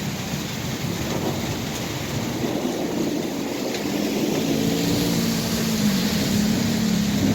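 Heavy rain pouring down in a thunderstorm, with a low rumble of thunder swelling in the second half.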